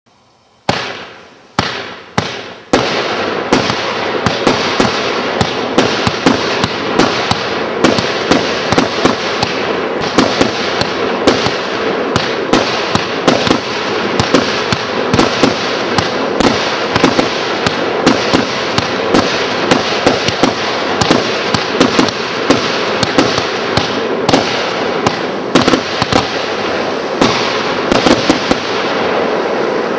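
A 49-shot fireworks cake firing: three separate shots in the first three seconds, then a rapid, unbroken barrage of shots and bursts with a continuous hiss and crackle.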